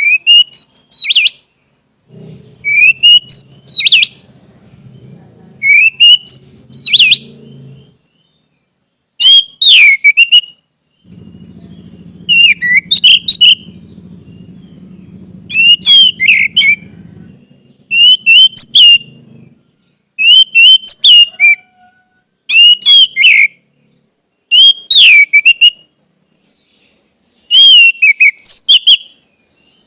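Orange-headed thrush singing short, loud whistled phrases of rising and sweeping notes, repeated about every two seconds. A steady high hiss and a low hum come and go behind it.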